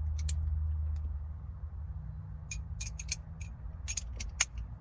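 Metal socket clinking against the 14 mm steering-wheel retaining bolt as it is test-fitted. There are two clicks right at the start and a cluster of sharper clicks in the last couple of seconds, the loudest near the end, over a steady low hum.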